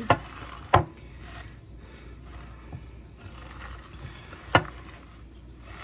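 A spoon stirring Rice Krispies cereal into melted marshmallow, with a faint steady rustle and three sharp knocks of the spoon against the bowl: two near the start and one past the middle.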